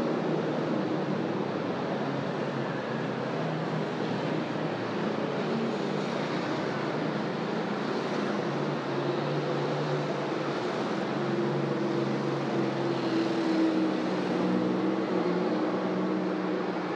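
Busy city road traffic: motor vehicle engines running and passing in a steady din, with one nearby engine's hum standing out more strongly in the second half.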